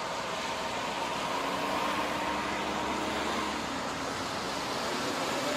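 Steady road-traffic noise: an even rush of passing vehicles on a street.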